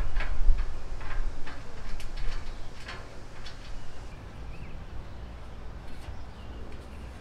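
Light metal clicks and knocks as slotted steel strut-channel rails are handled and shifted on a pole-mount frame, over a steady low rumble. The knocks die away after about three and a half seconds, leaving a quieter stretch with a couple of faint chirps.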